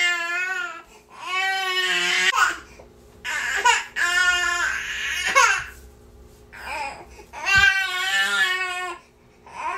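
Infant crying hard in long, high-pitched wails, one after another with short gasps for breath between them, about five cries.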